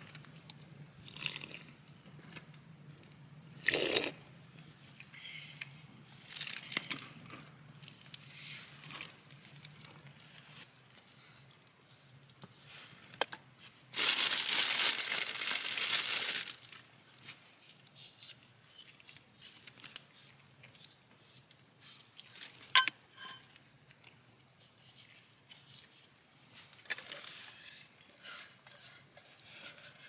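Clear plastic food bag crinkling and rustling as it is handled, with a long loud stretch of rustling about halfway through and scattered small clicks and clinks of camp cookware.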